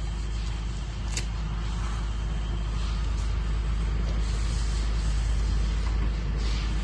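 Diesel engine idling steadily, a low even rumble, with a single sharp click about a second in.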